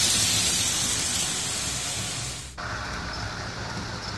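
Märklin model train running past close on its metal track, a steady rushing, rolling sound over a low hum. About two and a half seconds in it drops abruptly to a quieter, duller run.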